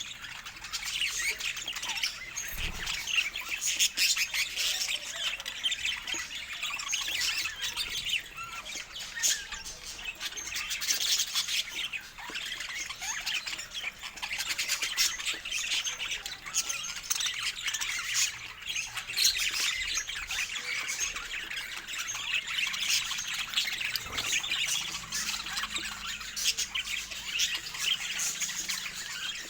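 Budgerigars chirping and chattering without pause: a dense stream of short, high chirps and squawks that overlap one another.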